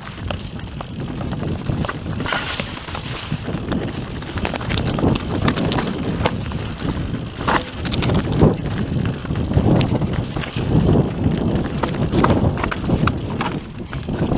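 YT Industries Capra AL Comp mountain bike descending a rocky trail: tyres rumbling and crunching over loose stones, with many quick clicks and clatters from the bike jolting over rocks, and wind buffeting the microphone.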